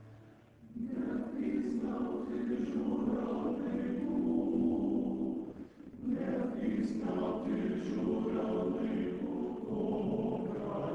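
Male choir singing in Ukrainian, entering about a second in, breaking off briefly near the middle, then singing on.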